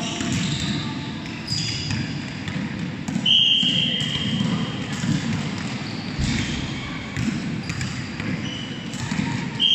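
Several basketballs being dribbled on a hard indoor gym floor, a steady jumble of bounces echoing in the hall, with short high squeaks now and then, the clearest about three seconds in.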